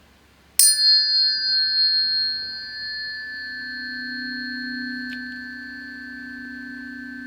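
Planetary tuning forks struck about half a second in, ringing on with clear, steady high tones. A lower steady tone swells in a few seconds later and sustains beneath them; together they sound the Juno–Pluto conjunction.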